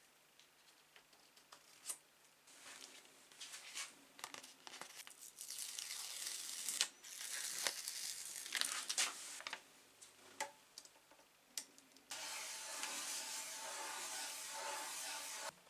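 Paper backing being peeled off a sticker, with crackling and tearing, then fingers rubbing the sticker down onto a plastic recoil starter cover in a steady rub that stops suddenly near the end.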